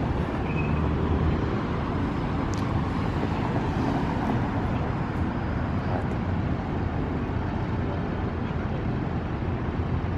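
Steady roadside traffic: cars and other vehicles running past on a busy multi-lane boulevard, a constant roar with low engine hum.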